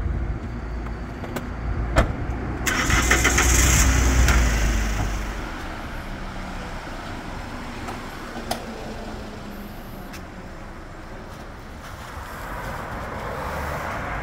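Hyundai Porter II truck's engine cranked and catching, loud for about three seconds, just after a sharp knock, then a quieter steady background with a short click near the middle.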